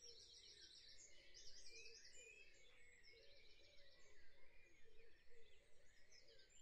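Near silence: faint room tone with faint bird chirps in the background.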